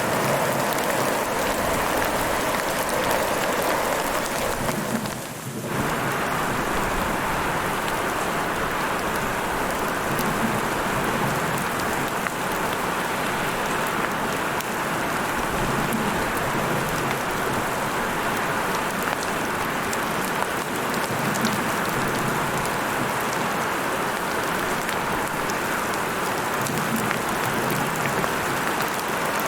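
Heavy rain falling steadily in an even, dense hiss, with a brief dip in level about five seconds in.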